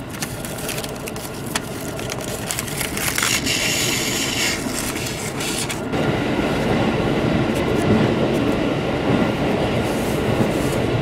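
Interior running noise of a JR Central 313 series electric train, with wrapping paper and ribbon rustling and crinkling over the first five seconds as a boxed lunch is unwrapped. About six seconds in, the running noise becomes louder and deeper.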